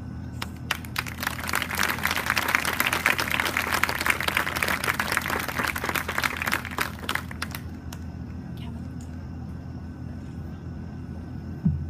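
Clapping from a small crowd of onlookers, starting as the music stops and dying away after about seven seconds. A steady low hum continues underneath.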